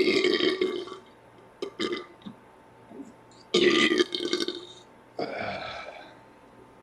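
A man burping several times, deliberately pushing the air up from his stomach. One long burp fades out about a second in, two short ones follow near the two-second mark, and two more long burps come in the second half.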